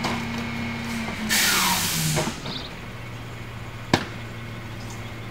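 Rear-loading garbage truck's engine running at raised speed, then dropping to a lower idle about a second in, with a burst of air hiss as it drops. A single sharp knock just before four seconds in as the wheeled trash cart meets the back of the truck.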